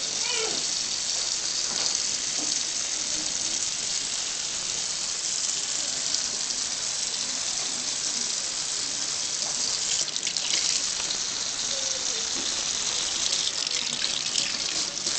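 Kitchen tap running steadily into a stainless steel sink, the water splashing over hands rinsing pieces of duck meat under the stream.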